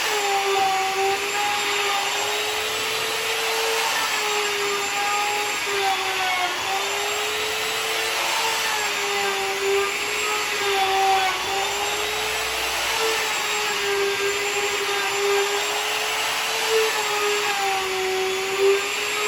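Electric router milling a walnut slab flat, its motor running with a steady high whine under a hiss of cutting. The pitch sags a little now and then as the bit takes load.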